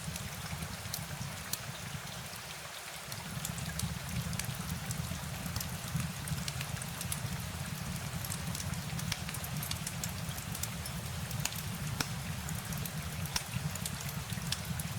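Steady rain, with many scattered sharp ticks over a constant low rumble.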